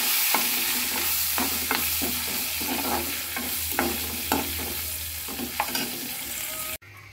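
Oil and ghee sizzling in a metal kadai as a tempering of mustard seeds, cumin, pepper, ginger and curry leaves fries. A steel spoon stirs and scrapes against the pan about once or twice a second. The sizzle cuts off suddenly near the end.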